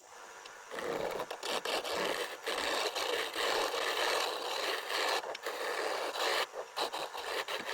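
A tool scraping against walnut spinning on a Shopsmith Mark 7 lathe, a dense rasping noise made of many fine irregular strokes. It starts about a second in.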